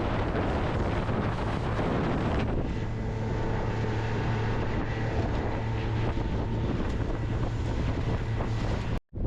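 A boat's outboard motor running at a steady pitch under heavy wind buffeting on the microphone. The engine's hum stands out after the first couple of seconds, and the sound cuts off abruptly near the end.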